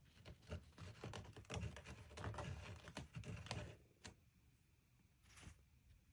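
A quick, irregular run of faint clicks and taps, stopping about four seconds in, followed by two single clicks.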